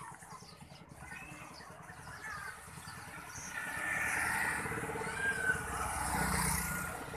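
Motorcycle traffic passing close on the road, a steady engine and tyre noise that grows louder about halfway in and stays up until near the end.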